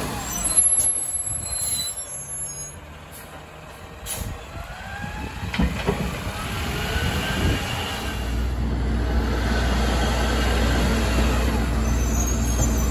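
Labrie Automizer automated side-loading garbage truck driving past and pulling away, with short hisses of its air brakes and a pitch that glides as it moves off. Near the end comes the steady low hum of a garbage truck's diesel engine running.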